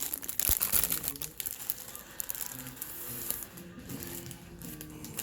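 Packaging crinkling and rustling as items are handled, loudest in the first second or so, with faint music playing underneath.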